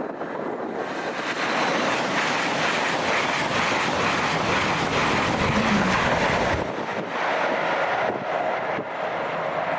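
LNER Azuma high-speed electric train passing at speed: a loud rush of wheels on rail and air that builds about a second in and holds. It falls away sharply about six and a half seconds in as the train clears, leaving a fainter rush with a steady tone as it draws away.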